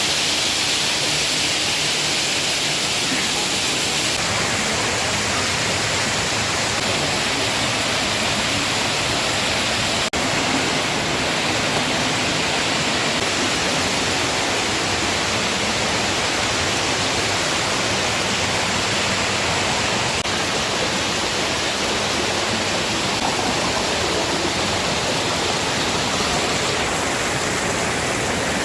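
Waterfall rushing: a loud, steady noise of falling water, broken once by a brief click about ten seconds in.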